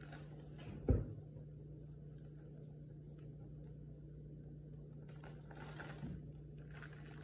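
Faint scraping and plastic-bag rustling as a spoon pushes a thick peanut butter mixture into a plastic bag, over a steady low hum. A single dull thump comes about a second in.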